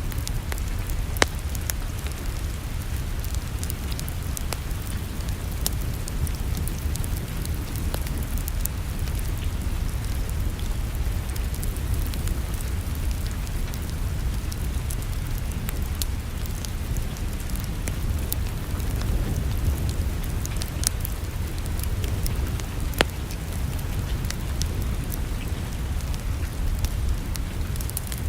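Wood fire crackling in a fireplace: scattered snaps and two louder pops, one about a second in and one near the end, over a low steady rumble.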